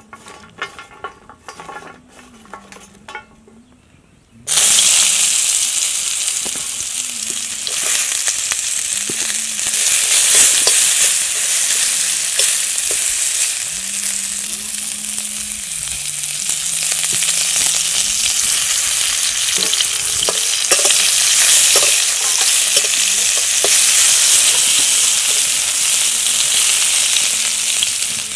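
Light clicks as small spice-coated fish are handled on a steel plate, then about four seconds in a sudden loud sizzle as they go into hot oil in a metal wok. The oil keeps sizzling steadily as the fish fry.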